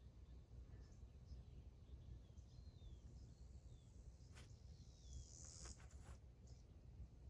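Very quiet outdoor ambience with faint, short falling bird chirps now and then, and a couple of soft clicks in the second half.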